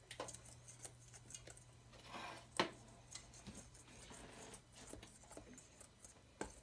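A whisk clicking and scraping irregularly against a mixing bowl as pancake batter is stirred, with one sharper clink about two and a half seconds in.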